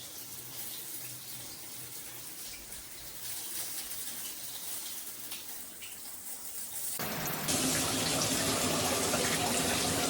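Dual shower head spraying water in a steady rush, growing louder about seven seconds in.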